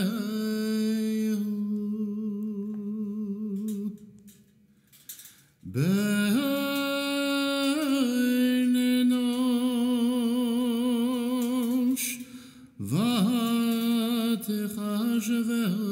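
Solo, unaccompanied cantor chanting Hebrew liturgy in long held notes with a wavering vibrato, in three phrases with short breaks for breath about four and twelve seconds in.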